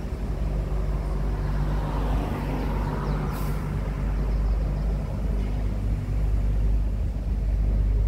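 Engine of a tourist tram running steadily as it rolls along a street, heard from on board as a low drone. A short high hiss comes a little over three seconds in.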